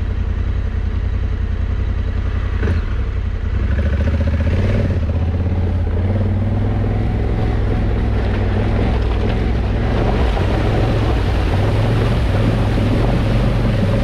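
Adventure motorcycle engine running steadily at low trail speed, picking up a little about three and a half seconds in.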